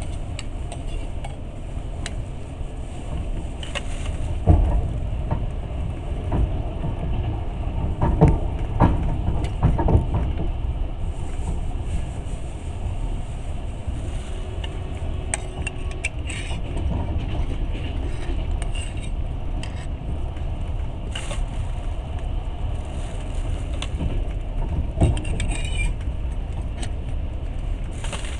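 Passenger train running, heard from on board: a steady low rumble of wheels on the track, with a few heavier knocks now and then.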